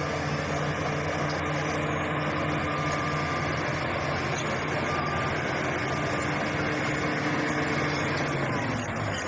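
Shantui SD16 bulldozer's diesel engine running steadily, its pitch sagging slightly near the end.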